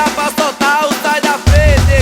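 Music: a football supporters' chant, voices singing over a samba-style percussion section. The deep drums drop out and come back in about one and a half seconds in.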